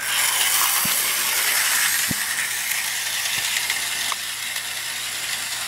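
Cheap model steam locomotive's small motor and gears running at under 30% throttle: a loud, rattly buzz with a high hiss that starts suddenly, the engine shaking as it goes. A few faint clicks come through, and the buzz eases slightly about four seconds in.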